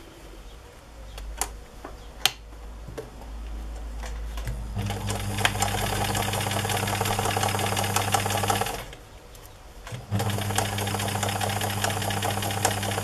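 Electric domestic sewing machine stitching a seam through layered cotton fabric: a few light clicks at first, then the motor and needle run at a steady fast pace for about four seconds, stop for a little over a second, and run again.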